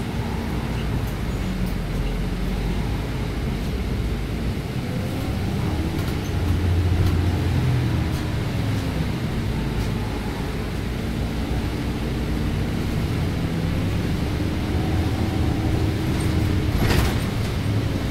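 Inside a city bus under way: a steady rumble of engine and road noise, with a whine that slowly rises and falls in pitch as the bus speeds up and slows. A single sharp click near the end.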